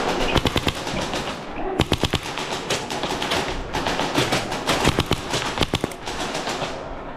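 Airsoft guns firing in rapid bursts: clusters of sharp pops and clicks in several strings, each lasting a fraction of a second to about a second.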